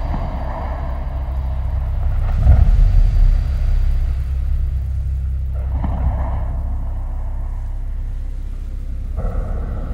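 Film sound design: a deep, steady low rumble that swells about two and a half seconds in, with brief whooshing, tonal washes layered over it around six seconds in and again near the end.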